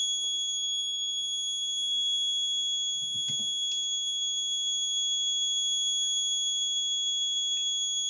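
Piezo buzzer on a GSM/GPS panic-alarm board sounding one steady, unbroken high-pitched tone: the alarm set off by the panic switch while the unit sends its SMS alerts. A short knock about three seconds in.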